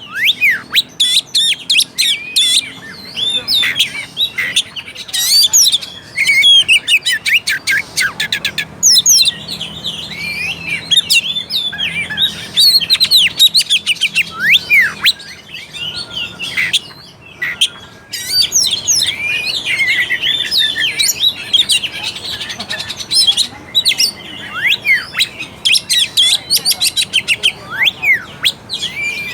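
Oriental magpie-robin (kacer) singing: a fast, varied stream of whistles and chirps broken by rapid rattling runs, with brief pauses between phrases.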